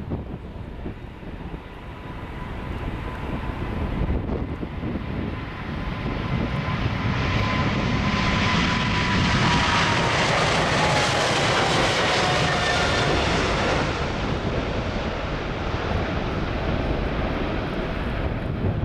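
Boeing 777-300ER's twin GE90 turbofan engines at takeoff power as the jet rolls down the runway past the listener and climbs away. A steady roar builds to its loudest about halfway through, with a thin whine that slowly drops in pitch as the aircraft goes by.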